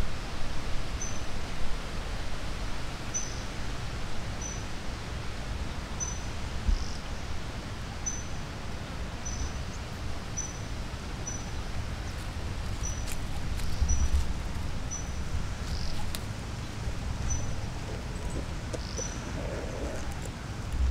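Outdoor ambience: wind rumbling on the microphone, with a short high chirp repeating roughly once a second.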